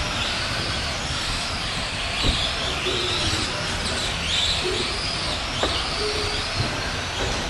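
Several electric Tamiya Euro racing trucks running on the track, their motor and gear whine repeatedly rising and falling with speed, with a couple of sharp knocks.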